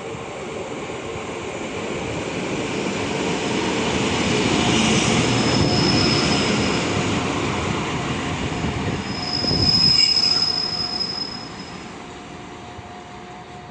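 A train rolling past with steel wheels squealing: a steady high-pitched squeal rises twice over the rumble, about five seconds in and again about ten seconds in, where it is loudest.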